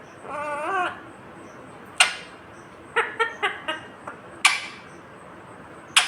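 Green ringneck parakeet vocalising: a short warbling, voice-like phrase, then sharp, brief high-pitched calls, a single one about two seconds in, a quick run of chirps around three seconds, and single calls again later.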